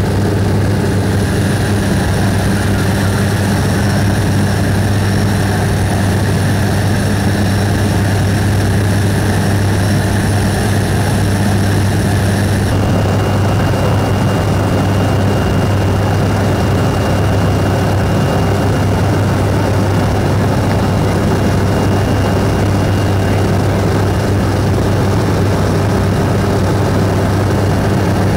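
Steady drone of a small propeller-driven jump plane's engine heard from inside the cabin in flight, with a deep steady hum under a noisy rush. About halfway through, the faint high whine over it changes abruptly.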